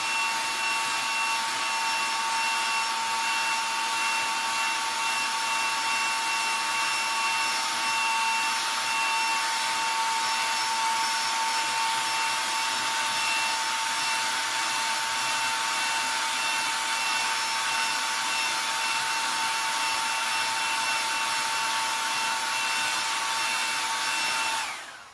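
Handheld hair dryer running steadily, a rush of air with a fixed whine from its fan motor, heat-setting freshly airbrushed pearl paint on a crankbait. It switches off abruptly at the very end.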